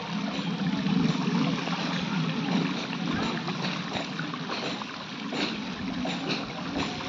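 Water sloshing steadily with irregular splashes, from wading through shallow floodwater on a flooded street.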